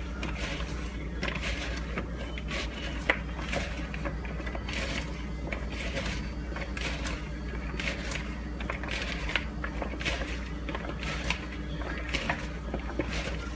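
Hands tossing oiled, seasoned sweet potato fries in a plastic mixing bowl: irregular rustling and soft clicks of the strips against the bowl, over a steady low hum.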